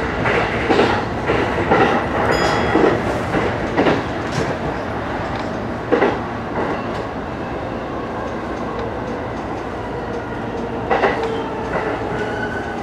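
E233 series electric train running at speed, its wheels clacking irregularly over rail joints above a steady rumble of running noise. The clacks come thickly in the first few seconds, then thin out to single knocks about six and eleven seconds in.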